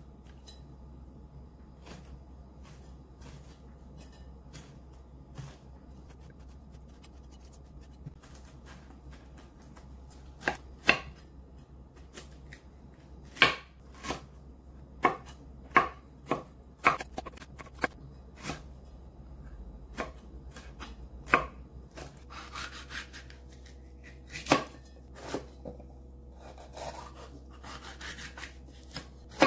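Kitchen knife cutting fresh pineapple and then green hot peppers on a wooden cutting board. Soft slicing ticks at first, then irregular sharp knocks of the blade on the board from about ten seconds in, with scraping cuts near the end.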